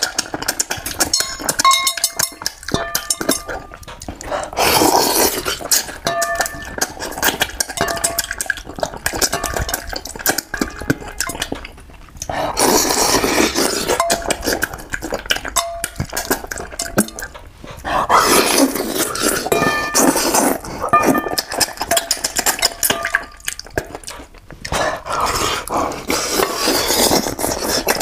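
Close-miked eating of a braised fish head: chewing and sucking at the meat and bones in noisy spells lasting a few seconds. Between them, chopsticks click and tap against a brass bowl, which rings briefly.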